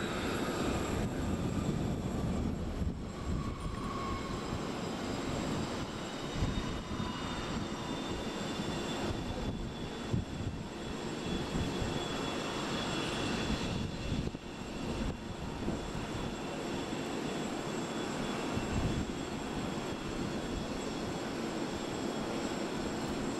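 Aircraft engines running steadily: a continuous rumbling noise with thin, high, steady whining tones over it.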